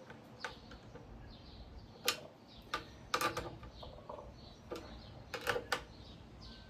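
Scattered sharp clicks and clacks of a hand tool and metal fan hardware as the ceiling fan's last screws are given a final tightening, with small clusters about three seconds in and again after five seconds.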